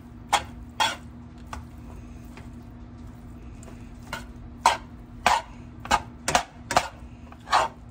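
A spatula scraping and knocking against a skillet while stirring cooked ground beef. There are two strokes in the first second, a pause, then a quick run of about seven strokes from about four seconds in.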